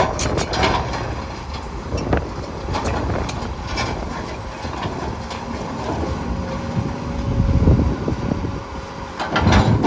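Komatsu PC210LC-10 hydraulic excavator working: diesel engine running steadily under load, with scattered sharp metallic knocks and clanks, a cluster of them near the end. A steady thin whine holds for a few seconds in the middle.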